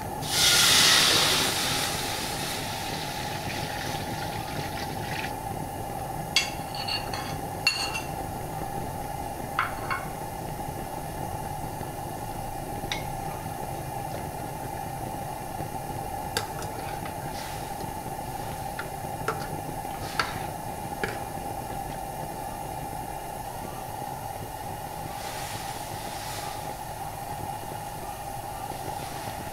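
Water pouring into an empty metal wok, a loud rush for the first two seconds or so. Then a steady low hiss, with scattered light clinks and taps of bowl and utensils against the wok as sauces and spices are poured in, and another softer pour near the end.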